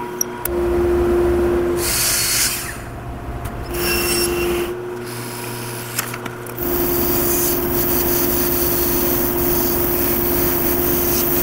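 Drill press motor running and its bit boring into hickory in a few short runs. About two-thirds of the way through, a band saw takes over, running steadily and cutting a small hickory block.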